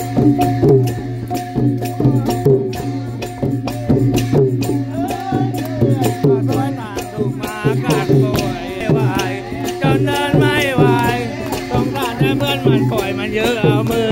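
Thai klong yao long-drum ensemble playing a steady, driving beat, with small cymbals clashing over the drums and a low, steady drone beneath. From about the middle on, voices sing and whoop along.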